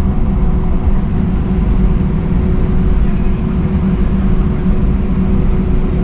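Steady engine and airflow noise inside the cabin of an Airbus A319 airliner: a constant deep hum with a faint steady whine over it, not changing in pitch or loudness.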